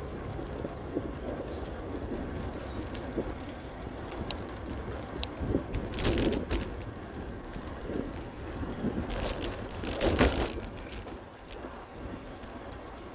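Bicycle rolling along a paved road: steady tyre and road noise with small clicks and rattles, and louder rushes of noise about six and ten seconds in.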